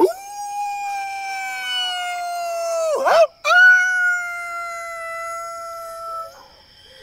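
A man howling like a wolf: two long, held howls with a quick breath between, the first ending in a downward slide about three seconds in.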